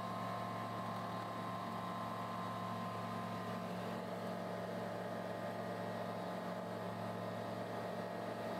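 Steady drone of a TL Ultralight Sting light aircraft's engine and propeller in cruise flight, heard from inside the cockpit.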